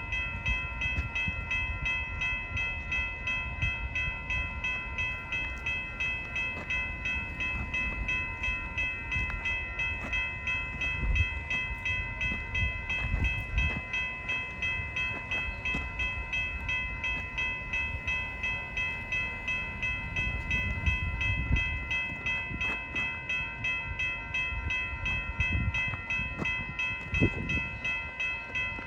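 Railroad grade-crossing warning bell ringing in quick, even strokes as the crossing gates work for an approaching Metra train, over a low rumble.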